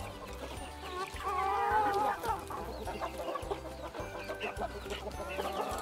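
A flock of chickens clucking and calling while they crowd in to feed, with a louder wavering hen call about a second in and short high chick peeps near the end.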